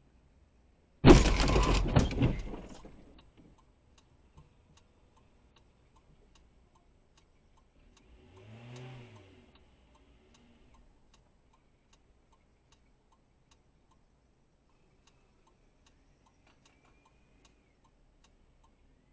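A sudden loud crash about a second in that dies away over two seconds: a car striking the parked car that carries the dash cam. Then faint regular ticking, about two a second, and a brief faint hum that rises and falls about eight seconds in.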